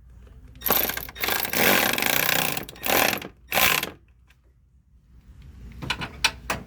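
A hand ratchet turning a 10 mm fastener, clicking rapidly in three bursts, the first about two seconds long. A few sharp clicks and knocks of the tool against the parts come near the end.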